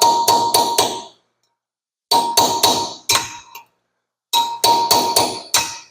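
Hammer striking a small chisel to drive stubborn locking pins out of a clutch pack. The strikes come in three quick runs of four or five sharp, ringing metal blows, with short pauses between the runs.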